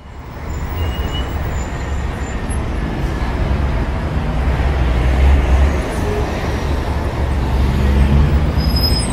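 Steady low rumbling traffic noise that fades in from silence at the start.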